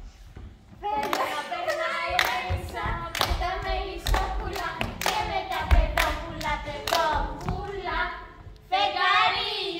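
Voices singing a folk dance song, with hand claps and dancers' feet thumping on the wooden stage. The singing comes in about a second in and carries on, with a short break just before the end.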